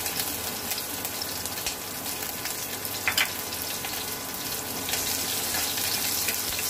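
Chopped green chillies and cumin seeds sizzling and crackling in hot oil in a metal kadhai, with one sharp pop about three seconds in. A metal spoon stirring through the pan near the end makes it a little louder.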